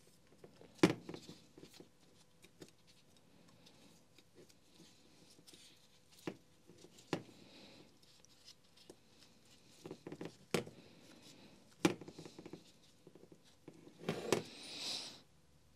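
Scattered light clicks and knocks as the aluminium gearbox cover and housing of a Makita HR5001C rotary hammer are handled on a workbench while its gasket is fitted, with a brief rustle near the end.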